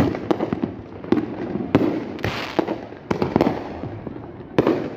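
Fireworks going off overhead: a rapid, irregular series of sharp bangs, about eight or nine in five seconds, with a stretch of crackling noise about two seconds in.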